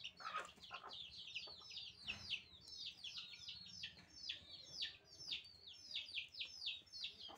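Young chickens peeping: a steady stream of short, high, falling peeps, several a second.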